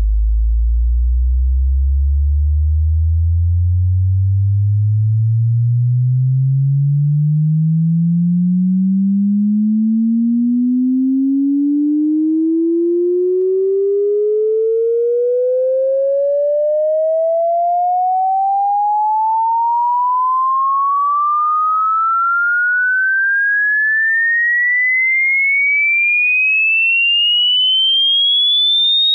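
Sine-wave test-tone sweep for checking a sound system's range, one pure tone gliding steadily upward from a deep bass hum to a high whistle.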